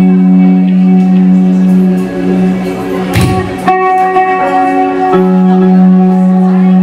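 A live band's electric guitars holding long, ringing notes, with a single thump about three seconds in and fresh notes struck just after it.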